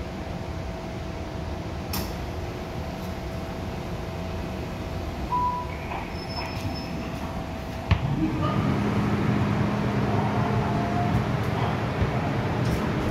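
Interior noise of an MTR M-Train electric multiple unit: a steady low rumble. About eight seconds in there is a sharp clunk, after which the noise grows louder and a steady hum joins it.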